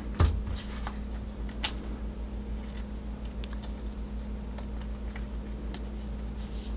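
Light, irregular clicks and rustles of trading cards being handled and slid into a plastic sleeve, with the sharpest click a little under two seconds in, over a steady low electrical hum.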